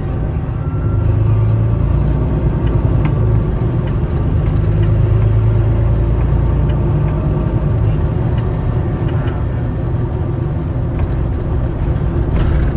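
City bus engine and running gear heard from inside the bus: a steady low rumble, with a short hiss near the end.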